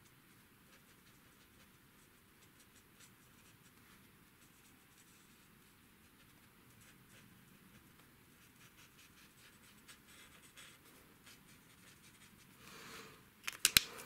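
Alcohol marker (Stampin' Blends) nib colouring on cardstock: faint, fine scratching strokes. Near the end there is a short rustle, then a few sharp clicks as the marker is put away.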